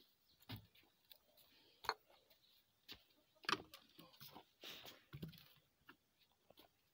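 Faint, scattered knocks, clicks and rustles of objects being handled at a car's boot and set down on dry dirt, with two sharper knocks about two and three and a half seconds in.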